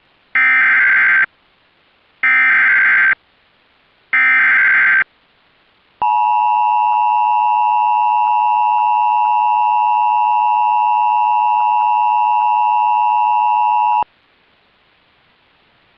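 Emergency Alert System activation: three short bursts of SAME digital header data about two seconds apart, then a steady two-tone attention signal held for about eight seconds that cuts off sharply. The tones herald a National Weather Service flash flood warning.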